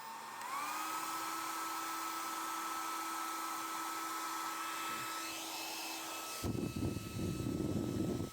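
Remington compact hair dryer running on its lowest setting: the motor's whine rises in pitch as it spins up about half a second in, then holds steady over the rush of blown air. For the last two seconds a loud low rumble joins it.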